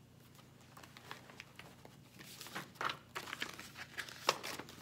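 Sheets of paper rustling and crinkling as they are handled and a large poster sheet is lifted out, in irregular crackles that grow busier about two seconds in.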